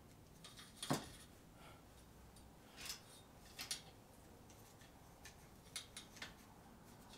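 Faint handling noises from working a curling wand through a mask's synthetic hair: a sharp click about a second in, then a few softer ticks and rustles.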